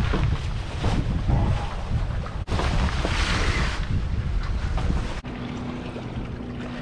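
Wind buffeting the microphone over lake water, with fabric rustling as a jet ski cover is pulled off. About two and a half seconds in the sound cuts to a brighter hiss, and past the middle it drops to a quieter hiss with a faint steady hum.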